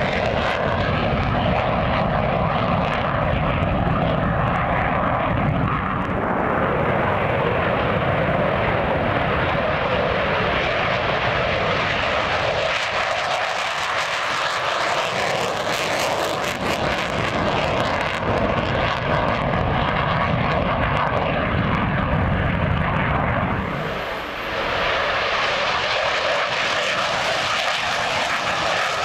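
F-16D fighter jet engine running at high power as the jet climbs away, a loud steady rushing noise. The sound dips briefly about 24 seconds in, then returns as loud as before.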